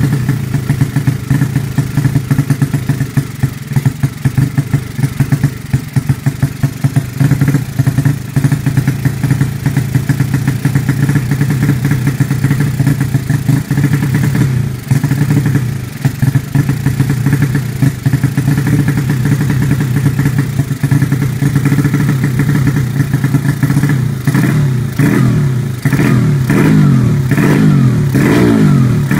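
Honda Supra's single-cylinder four-stroke engine, fitted with Honda Sonic 150 valves, running steadily on the stand. Near the end the throttle is blipped repeatedly, the revs rising and falling several times in quick succession.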